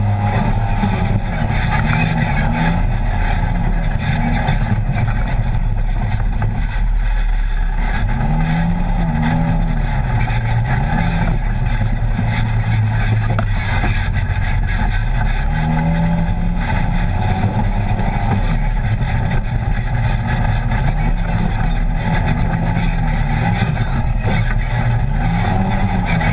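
Polaris RZR side-by-side's engine running on the move, its pitch rising and falling every few seconds as the throttle comes on and off, over a steady rush of noise from the ride.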